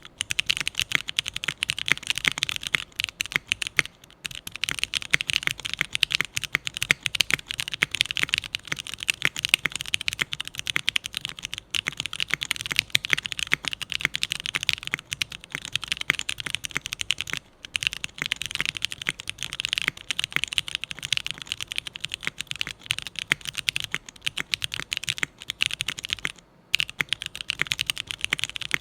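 Continuous fast typing on a mechanical keyboard with linear franken switches (Cherry MX Black housings with Gateron Quinn stems, lubed and filmed) under SP DCS keycaps on an aluminium plate, briefly pausing a few times.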